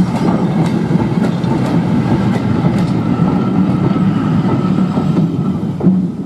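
Ivatt 2MT 2-6-2T steam tank locomotive and its train running loudly close by on the climb, with a regular clicking from the wheels about every half second or so.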